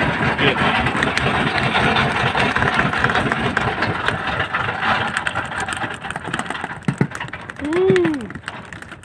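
Small fishing boat's engine running steadily, fading down over the last few seconds. Near the end a short voice call rises and falls in pitch.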